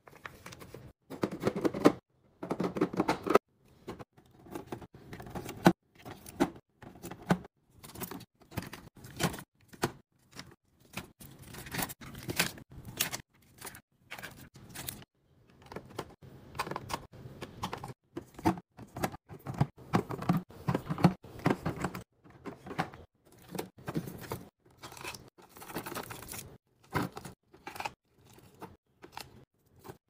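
Packaged food being set down and slid into clear plastic fridge organizer bins: taps and knocks of plastic on plastic, scraping, and crinkling of wrappers and food bags, in many short separate bursts.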